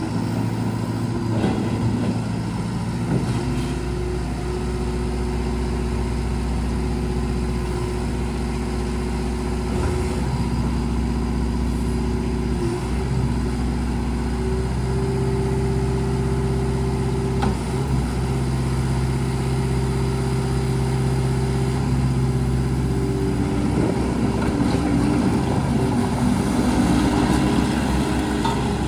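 Diesel engine of a JCB 3TS-8T telescopic skid steer loader running steadily, its note shifting in pitch a few times through the stretch and getting a little louder and rougher near the end.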